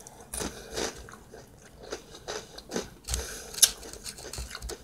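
A person chewing a mouthful of cucumber salad close to the microphone, with soft, irregular wet crunches. A plastic fork clicks against the takeout container near the end.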